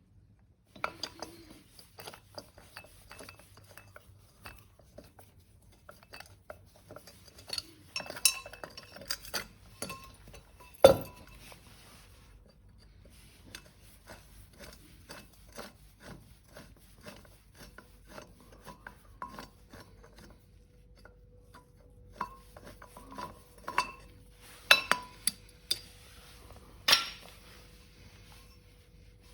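Metal parts clinking, scraping and knocking as they are handled, in irregular bursts, with one loud knock about eleven seconds in and a cluster of sharp clanks near the end.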